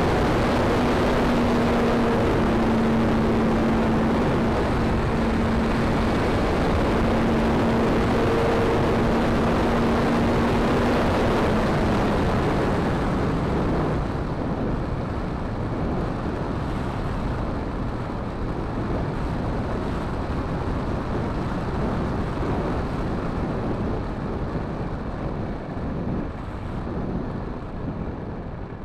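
RC model plane's engine and propeller running steadily under heavy wind rush on an onboard microphone. About twelve seconds in, the engine tone drops and fades as the throttle comes back, leaving a quieter rush of air as the plane descends towards the runway.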